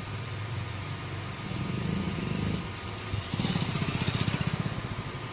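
Small sprayer engine running steadily while driving the spray gun. About three seconds in it throbs in a rapid, even pulse for a second and a half, with a rise in hiss.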